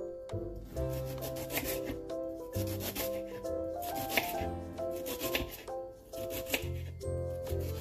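Kitchen knife slicing fresh ginger on a wooden cutting board, a run of quick cuts and scrapes, over background music with a steady bass line.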